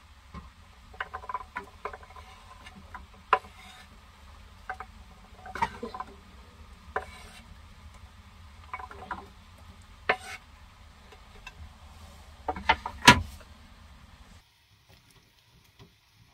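Chopped carrots being scraped off a wooden cutting board with a utensil and dropping into a pot: scattered knocks and scrapes, with one loud knock near the end. A low steady hum runs underneath and stops suddenly about two seconds before the end.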